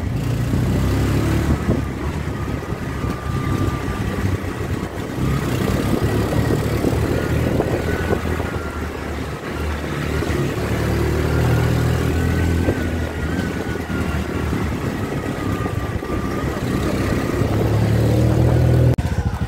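Auto-rickshaw's small engine running as it drives along, heard from inside the cabin, its note rising and falling a little with the throttle.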